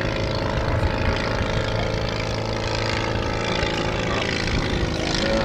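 Legal Eagle ultralight's half-VW engine and propeller running steadily as it flies overhead, with wind rumbling on the camera's built-in microphone.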